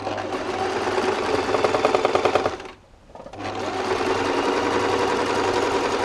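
Electric sewing machine stitching lace trim onto fabric, running fast with a rapid, even needle rhythm. It stops for about half a second just before halfway, then starts again.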